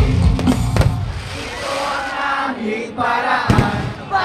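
Large concert crowd singing along with live band music, broken by a few sharp bangs of aerial fireworks bursting overhead: a cluster in the first second and another about three and a half seconds in.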